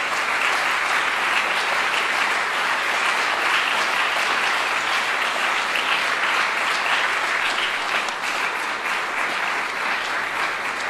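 A room full of people applauding steadily, a dense patter of many hands clapping that eases slightly in the last few seconds.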